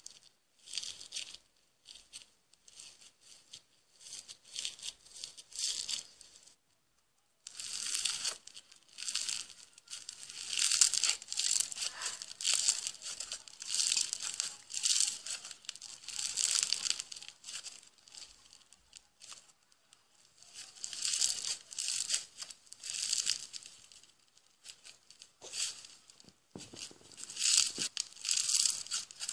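Foam-bead slime (floam) squeezed and kneaded by hand, giving irregular bursts of crisp crackling. The bursts are sparse at first, then come thick and fast from about a quarter of the way in, as played back through a screen's speaker.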